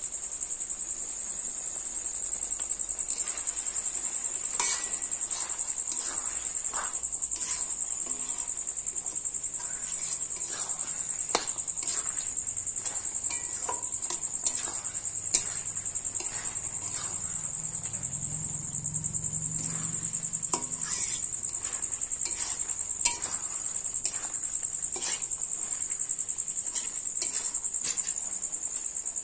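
Metal spatula scraping and knocking against an aluminium kadai in irregular strokes as chicken curry masala is stirred and fried down, over a steady high cricket trill.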